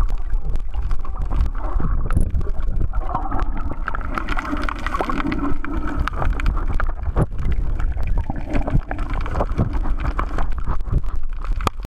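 Underwater sound picked up by a submerged camera: a steady low rumble of water moving around the housing, with many small clicks and crackles throughout. It cuts off suddenly near the end.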